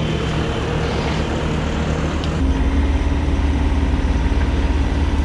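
Excavator's diesel engine running steadily, stepping up to a louder, higher pitch about two and a half seconds in.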